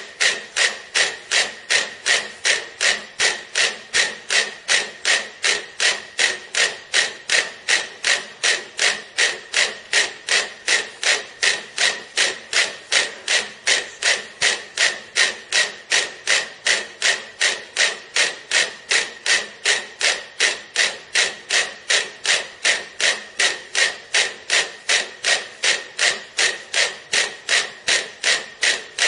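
Metronome ticking at a fast, even tempo, close to three beats a second, every tick alike.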